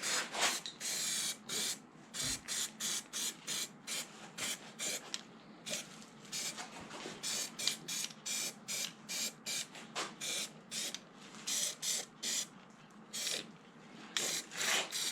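Primer sprayed from an aerosol can onto freshly welded steel, in many short hissing bursts at roughly two a second.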